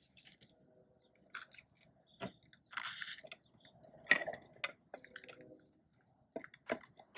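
Scattered clicks and brief crinkling as the plastic and paper packaging of a small toy capsule is handled.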